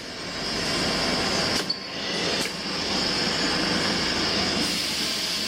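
Steady running noise of leather strap workshop machinery with a high whine, broken by a couple of brief knocks about two seconds in.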